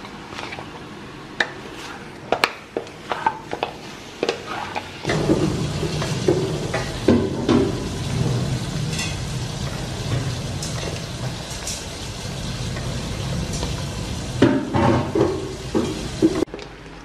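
Wooden spatula scraping and knocking against a metal wok as chicken pieces are stirred. About five seconds in, a steady frying sizzle joins the stirring, which continues in clusters of knocks until the sound drops away near the end.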